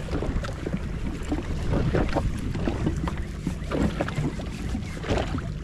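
Wind buffeting the microphone and water sloshing around a drifting jet ski, with a low steady hum underneath and scattered irregular splashes and knocks.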